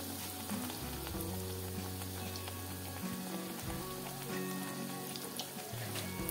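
Besan-battered bread slice deep-frying in hot oil in a kadai: a steady sizzle with a few small crackles.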